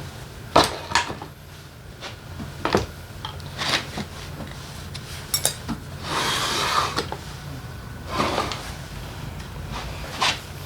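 Motorcycle engine parts being handled during disassembly: a string of separate metal clinks and knocks, with a longer scraping slide about six seconds in.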